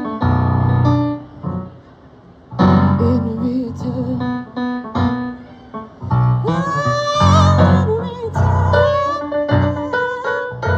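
Piano playing slow chords, pausing briefly about two seconds in, with a high melody line held over them in the second half.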